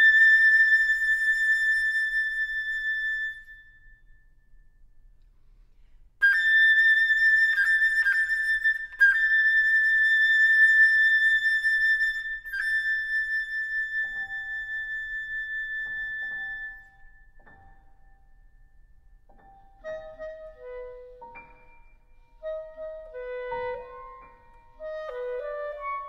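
Contemporary classical chamber music for flute, clarinet and piano in a birdsong style. It opens with the solo flute playing loud, high held notes with grace-note flourishes, which stops for a few seconds and then resumes. Soft high piano notes come in about halfway through, and near the end the clarinet and piano trade short chirping figures.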